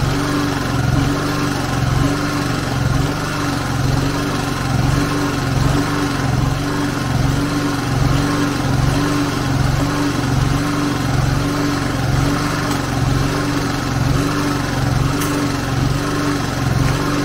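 Yamaha EF2800iSE inverter generator's small single-cylinder four-stroke engine running steadily, a constant hum with an even, regular pulse, while it supplies power to its outlets.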